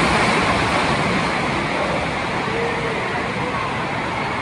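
A heavy cascade of water pouring down from a water park play structure and splashing into shallow pool water, drenching a person standing beneath it. The rush is strongest at the start and eases a little as the downpour thins.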